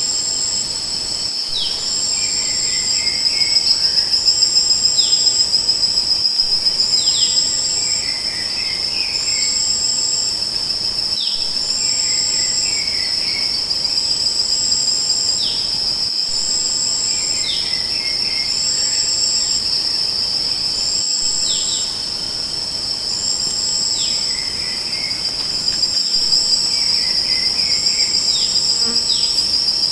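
Steady, high-pitched insect chorus with a continuous trill, shorter pulsing calls above it and brief falling chirps, the whole pattern repeating about every five seconds.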